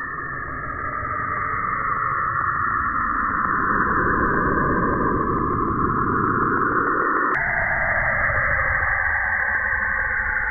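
Saturn's auroral radio emissions, recorded by the Cassini spacecraft and converted to sound: a steady, eerie hiss with swirling tones and a faint regular ticking under it. About seven seconds in, a sudden click breaks it and the texture changes.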